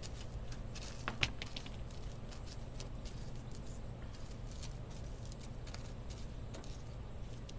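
Faint crackling and light ticks of crushed potato chips being pressed by hand onto fish fillets on a plate, with one sharper click about a second in. A steady low hum runs underneath.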